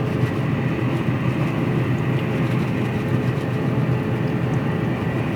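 Pellet grill running at full heat, with its combustion fan and firepot making a steady rushing rumble.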